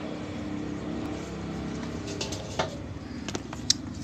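A steady low background hum, with a few short light clicks and taps in the second half.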